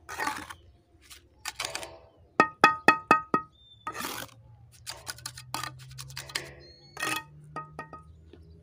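Pieces of concrete block and rubble knocked and scraped into place by hand against a brick pillar. About two and a half seconds in comes a quick run of five sharp ringing taps, the loudest sounds.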